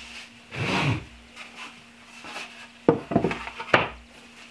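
Pine boards handled and set down on a wooden workbench: a brief sound just under a second in, then a few sharp wooden knocks about three seconds in.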